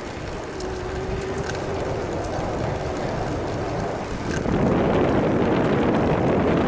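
Steady rush of wind on the microphone and tyre noise from a bicycle riding at about 25 km/h on an asphalt path. It gets louder about four and a half seconds in.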